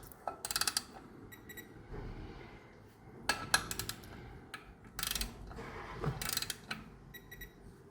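Ratchet wrench clicking in several short runs of rapid strokes as the clutch pressure plate bolts are run down, with lighter metallic ticks in between.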